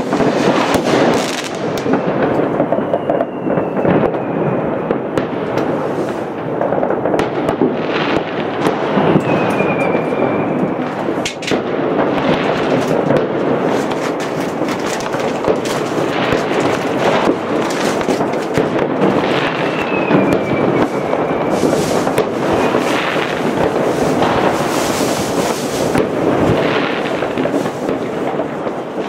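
Many New Year's Eve fireworks and firecrackers going off at once all around: a dense, unbroken crackle of bangs and pops, with high whistles gliding slightly down now and then.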